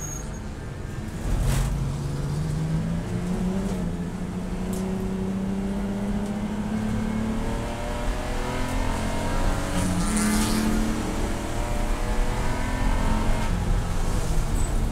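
Race car engine under load: it picks up sharply about a second and a half in and climbs slowly in pitch, drops briefly at a gear change about ten seconds in, then climbs again.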